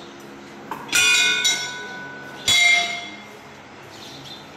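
Large hanging brass temple bells struck by hand, three clangs about a second in, half a second later and again near the middle, each ringing on with bright tones that slowly fade.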